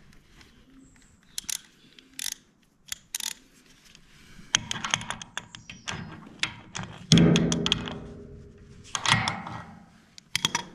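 Steel socket and wrench clinking and rattling against a motor-base adjusting bolt while the socket is tried on a bolt it won't fit. Scattered sharp clicks and a run of rattles, with one louder ringing metallic clank about seven seconds in.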